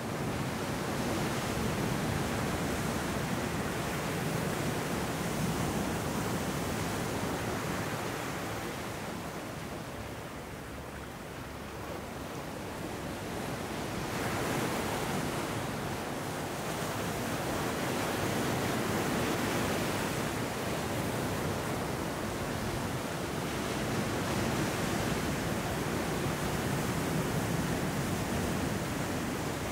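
Ocean surf washing in over a rocky sand beach: a continuous rush of broken waves that swells and eases, dropping back about ten seconds in and building again a few seconds later.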